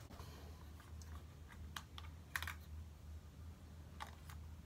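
Scattered faint plastic clicks and taps of a compact digital camera being handled while its battery compartment is worked open, over a low steady hum.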